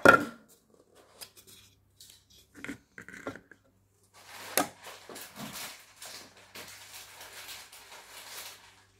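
Clear plastic food containers being handled on a counter: a sharp plastic clack as one is set down, a few light knocks, then several seconds of scratchy rustling and small clatters of plastic.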